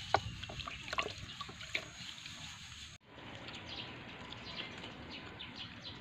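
A few small water splashes and drips over a low watery background. After a sudden cut about halfway, outdoor ambience with birds chirping many short, high notes.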